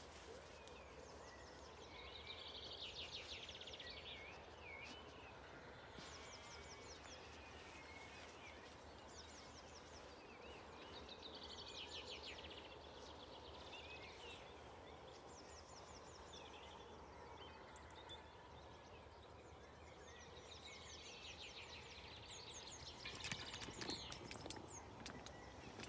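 Faint dawn chorus: songbirds singing short phrases of quick trills and whistles every few seconds over a steady low background hiss.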